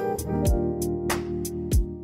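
Background music: sustained instrumental chords over a beat.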